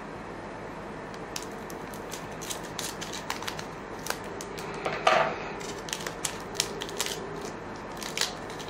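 Trading card pack wrapper crinkling as it is torn open and the cards inside are handled, a string of crisp crackles and clicks with one louder crinkle about five seconds in.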